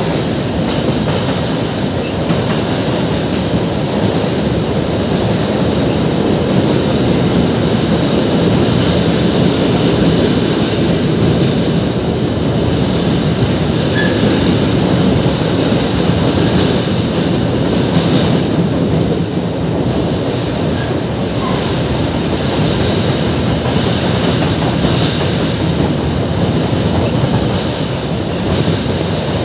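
Freight train tank cars and boxcars rolling steadily across a steel girder bridge: a continuous rumble of wheels on rail, with occasional clicks.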